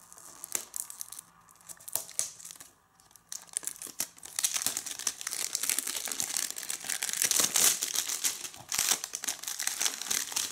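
Plastic shrink wrap being torn and peeled off a DVD case. A few scattered clicks and rustles come first, then from about four seconds in there are several seconds of dense crinkling.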